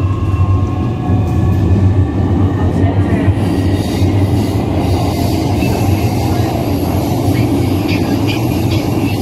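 Inside a Siemens-Adtranz A1 metro car under way: the GTO-VVVF traction equipment whines in several tones that rise slowly for the first three seconds or so, then fade. Underneath runs a steady low rumble of the wheels on the rails.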